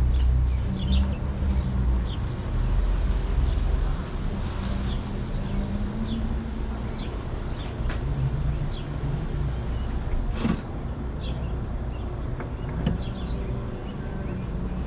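A car driving, with a steady low rumble of engine and road. Short high chirps are scattered throughout, and there is a sharp click about eight seconds in.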